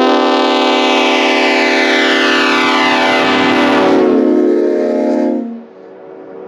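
Leslie RS5A five-chime air horn (a reproduction S5A fitted with RS spike-back heads) sounding one long, very loud blast of a deep chord, which cuts off about five and a half seconds in.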